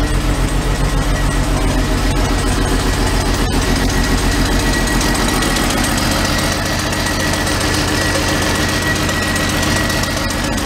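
Mercedes W116 280SEL's straight-six engine idling with an uneven, pulsing beat from a misfiring cylinder. A thin, steady high whistle joins about three seconds in.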